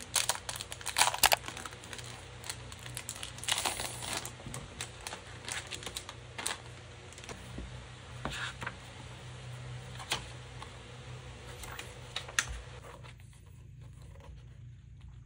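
Plastic shrink-wrap crinkling and tearing as a new notebook is unwrapped by hand, in irregular crackles and clicks that become fewer and fainter near the end.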